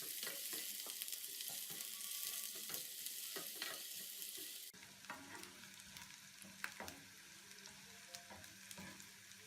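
Sliced onions sizzling in a pan of hot fat, with a spoon clicking and scraping against the pan as they are stirred. About halfway through, the sizzle drops away suddenly to a much fainter hiss with only an occasional tap.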